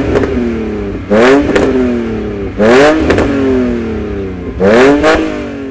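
BMW E46's engine through a Supersprint sport exhaust, revved in four short blips from idle. Each rev climbs quickly and falls back slowly.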